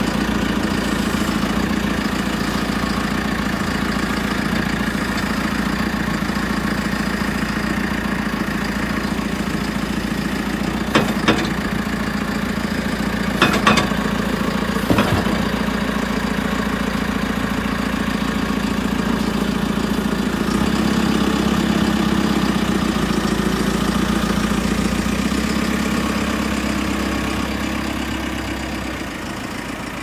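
JCB 3CX backhoe loader's four-cylinder diesel engine idling steadily, with a handful of short knocks near the middle.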